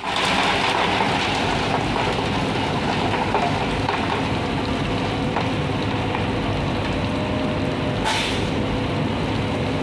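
Concrete mixer truck running, its drum turning while wet concrete slides and splashes down the discharge chute into a wheelbarrow. There is a steady wet rushing over the truck's hum, and a short hiss about eight seconds in.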